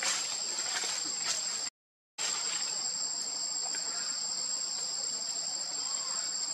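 Steady high-pitched buzzing of an insect chorus, with a thin, even whine above it. The sound cuts out for about half a second roughly two seconds in, then carries on unchanged.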